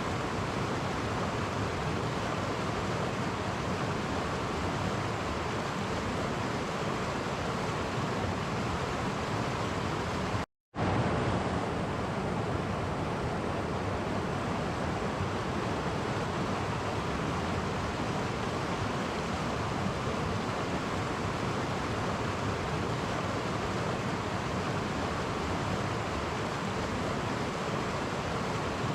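Clear woodland stream flowing over small water cascades, a steady rushing of water. The sound drops out completely for a split second about ten seconds in, then resumes unchanged.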